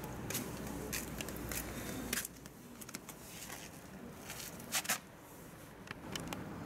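Footsteps and light scuffing on a paved walkway: scattered sharp clicks and ticks, the loudest pair near five seconds in. A low steady rumble underneath drops away about two seconds in.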